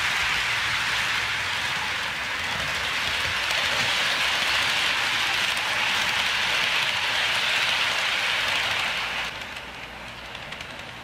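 HO scale model freight train rolling past close by: a steady rushing hiss of metal wheels on the track, with the locomotive's motor. It drops away about nine seconds in as the cars move off.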